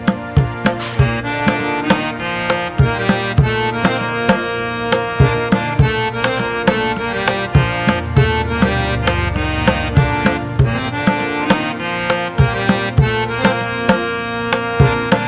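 Background music: a steady beat of hand-drum strikes over held melodic notes.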